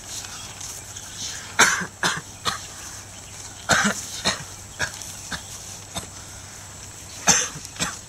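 A person coughing repeatedly, in short bouts of two or three coughs, about five bouts in all.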